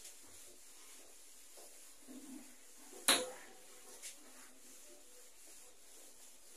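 Faint rubbing of a handheld duster wiping a whiteboard, with a sharp knock about three seconds in and a lighter tick a second later.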